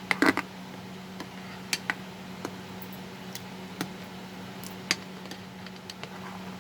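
A spoon clinks and knocks against a blender jar while the mango pulp and water are stirred. There is a quick cluster of clinks at the start, then single taps every second or so.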